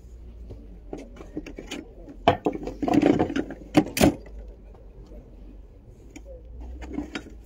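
A run of irregular hard knocks and clicks with a brief scrape among them, loudest about two to four seconds in, then quieter.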